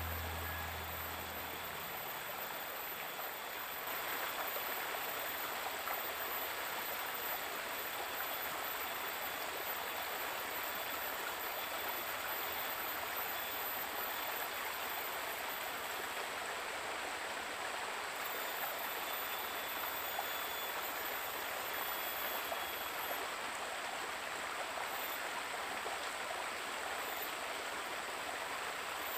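Shallow river running over rocks: a steady rushing of water, a little louder from about four seconds in.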